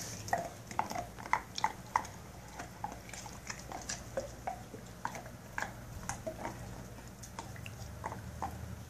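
Pit bull gnawing a lamb bone: irregular crunches and clicks of teeth on bone, with a run of louder crunches in the first two seconds.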